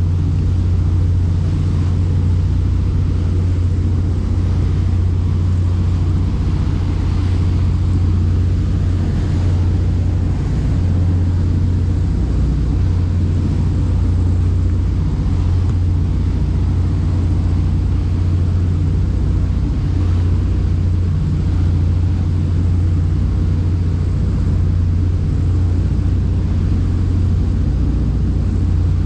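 Boat engine running at a steady speed, a constant low drone.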